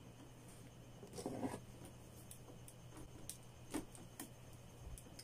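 Quiet handling noise of insulated electrical wires being sorted in a plastic junction box: a brief rustle about a second in and a couple of light clicks later, over a faint steady hum.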